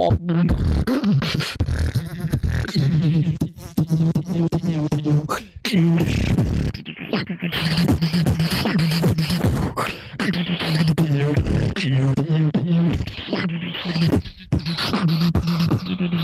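Solo beatboxing: a held low vocal bass line under rapid mouth-made clicks, kicks and snares, with brief breaks about five and a half and fourteen and a half seconds in.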